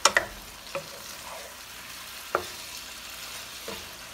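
Beef tendon and shank pieces in sauce sizzling in a frying pan while a spatula stirs them, with scrapes and knocks of the spatula against the pan. The loudest knocks come right at the start, with another about two seconds in.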